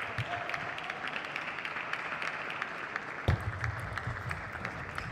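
Audience applauding: a dense patter of many hands clapping. A thump about three seconds in is followed by a low rumble.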